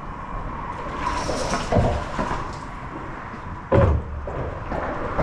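Two dull, hollow thumps on a fiberglass bass boat, about two seconds apart.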